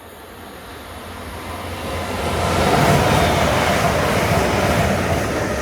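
CrossCountry Voyager diesel multiple unit passing at speed: a rush of engine and wheel noise that builds over about three seconds, holds at its loudest, then begins to fade as the train moves away.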